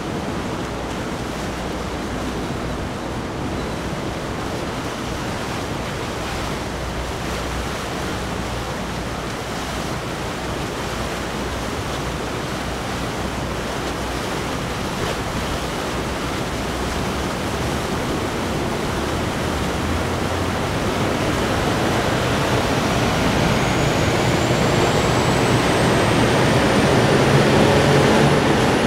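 Steady rush of water and wind from a fast-moving boat's wake. Over the last several seconds it grows louder, as the boat's engine note and a rising high whine come in.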